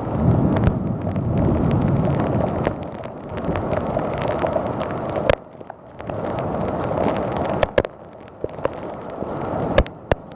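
Severe thunderstorm wind buffeting the microphone with a heavy downpour, a gusty rush that swells and eases and drops away briefly about halfway through and again near the end, with scattered sharp clicks throughout.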